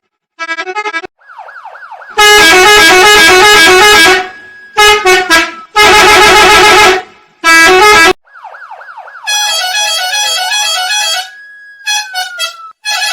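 A bus horn and a police car siren cut together and altered with sound effects. The siren wails and yelps in fast rising and falling glides. The horn honks in very loud, distorted blasts: a long one, two short ones and another long one. The siren glides come back after the blasts, and a horn blast returns near the end.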